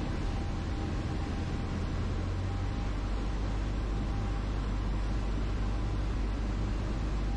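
Cessna 152's four-cylinder Lycoming engine and propeller running with airflow noise, heard from inside the cockpit as a steady low drone while the plane comes in to land on grass.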